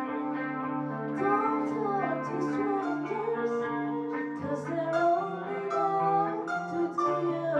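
Live rock band playing a song: a female singer over keyboard, electric guitar, bass and drums.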